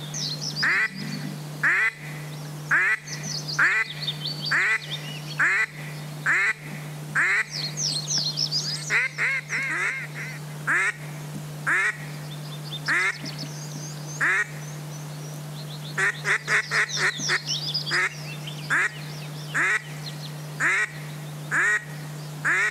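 Duck quacking: single loud quacks about once a second, with runs of fast quacks about 9 and 16 seconds in. Thin, high chirping bird calls sound above the quacks, and a steady low hum runs underneath.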